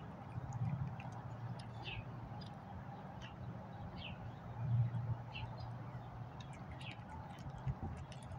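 Black cat eating wet tuna and crab pâté from a bowl, with small chewing and licking clicks. Birds chirp in short falling notes in the background, over a steady low rumble that swells briefly about five seconds in.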